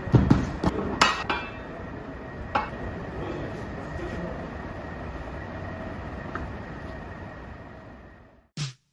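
Dishes and cutlery clinking a few times in the first three seconds, over a steady background hum that fades away near the end.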